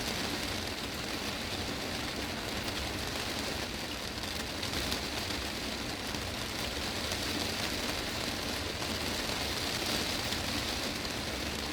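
Heavy rain drumming steadily on a greenhouse's glass roof, a dense, even patter of countless drops.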